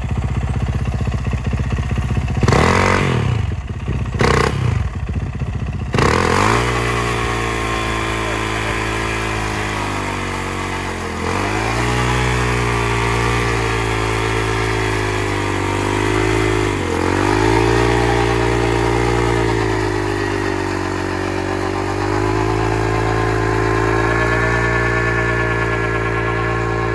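Yamaha YZ450F's single-cylinder four-stroke engine doing a stationary burnout, spinning the rear tyre against a board. After idling and a few short revs, the engine goes up about six seconds in and holds high revs, dipping briefly twice.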